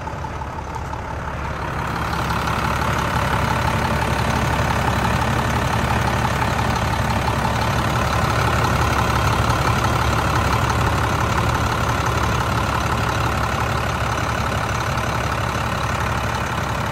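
International 4300 truck's diesel engine idling steadily, growing louder about two seconds in.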